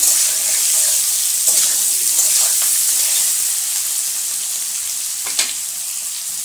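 Boiled kakrol (spiny gourd) pieces frying in oil in a karai, a steady sizzle, with a spatula scraping the pan a few times as they are turned.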